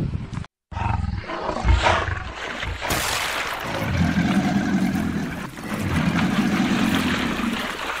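A deep animal roar and growl, with water splashing and churning from about three seconds in. There is a brief dropout to silence just before the first second.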